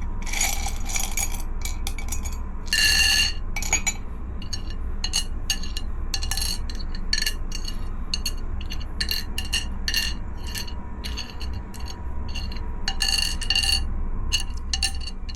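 Small packaged trinkets and stationery items clinking and rattling as they are scooped and tipped out, in a string of short, irregular clatters over a steady low hum.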